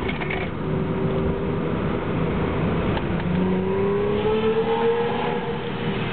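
BMW E30 323i's 2.3-litre straight-six engine running under way: its note rises over a couple of seconds past the middle, then eases off a little.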